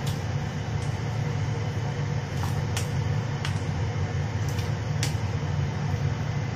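A plastic slotted spoon clicking against a stainless steel bowl about five times, scattered, as pieces of fried chicken are scooped into a pan of boiling broth, over a steady low hum.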